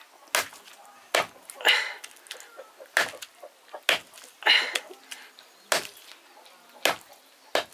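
A heavy curved knife chopping a rooster into small pieces on a wooden chopping block, cutting through meat and bone. The sharp chops come about once a second, a few of them longer and rasping.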